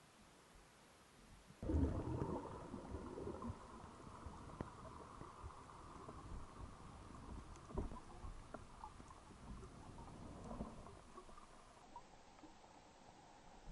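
Muffled underwater water noise from a freediver's dive: a sudden rush of water about two seconds in, then low rumbling water movement and bubbles with scattered small clicks, fading near the end.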